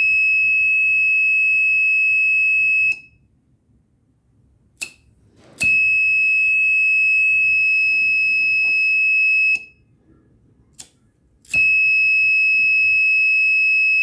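Buzzer of a flame-sensor fire alarm sounding three long, steady, high-pitched beeps, each about three to four seconds, switched on each time a lighter flame is held to the flame sensor. Short clicks fall in the quiet gaps between the beeps.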